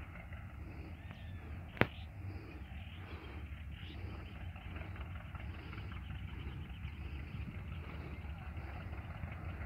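Open-air rural ambience: a steady low rumble with faint bird calls, and one sharp click a little under two seconds in.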